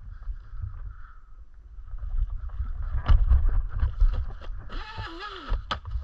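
Onewheel electric board rolling over a dirt trail: a steady low rumble of tyre and wind on the mic, with knocks as the wheel goes over roots about three to four seconds in, and a short whine that rises and falls about five seconds in.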